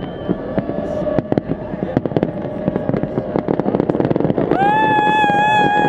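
Aerial fireworks exploding in rapid cracks and bangs over a crowd. About four and a half seconds in, a loud, long, steady high note starts up from the crowd and becomes the loudest sound.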